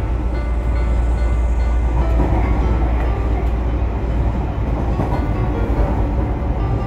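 Tobu Urban Park Line (Tobu Noda Line) express train running, heard from inside the carriage: a steady low rumble of wheels on rail, with faint steady tones above it.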